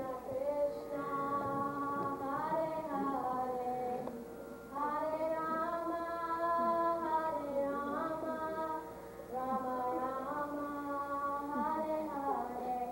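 A girl singing solo, a slow melody in long held notes that glide between pitches, in three phrases with short breaks between them.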